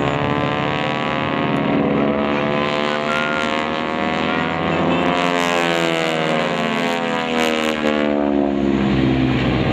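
Two North American T-6 Texans' Pratt & Whitney R-1340 nine-cylinder radial engines and propellers droning overhead through aerobatic manoeuvres, the pitches of the two engines sliding up and down and crossing as the planes pass.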